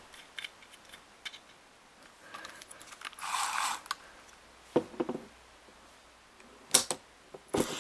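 Handling noise from an Abu 5500 baitcasting reel: a short scrape about three seconds in, then a few sharp clicks and knocks as the metal reel is turned over and set down on a wooden bench, the loudest knock near the end.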